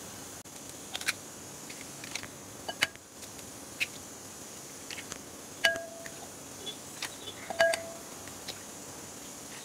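Eggs tapped on the rim of a glass bowl and cracked open one after another: a series of light, sharp taps, a few of them followed by a brief ringing tone from the glass.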